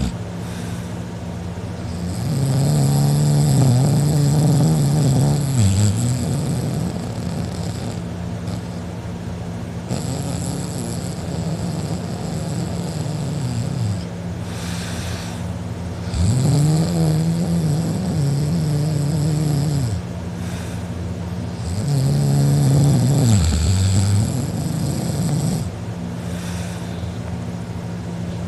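Loud snoring from a man passed out drunk with his mouth wide open. There are four long, pitched snores, each rising and then falling, about six seconds apart.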